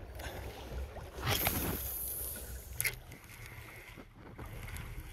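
Water lapping and splashing against a fishing kayak's hull over a steady low wind rumble on the microphone. The water noise swells for about a second a little over a second in, and there is a single sharp click near the three-second mark.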